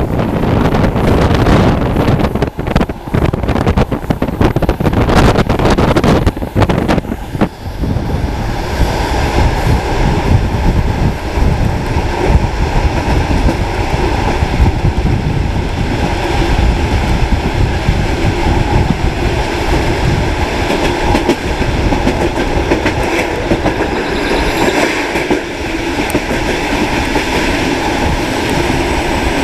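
Suburban train running on the rails, heard from inside a carriage at an open window: wheels clattering over rail joints under a steady rumble. Wind buffets the microphone for the first several seconds, then the noise settles into an even run.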